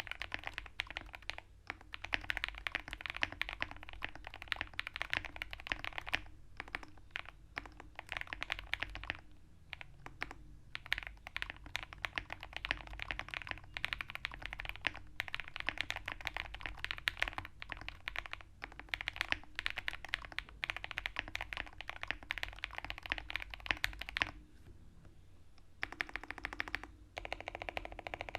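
Typing on a QK65 mechanical keyboard with lubed KTT Kang White linear switches: a fast, steady run of keystroke clacks with a few short pauses. Near the end a lighter, slower stretch of keypresses.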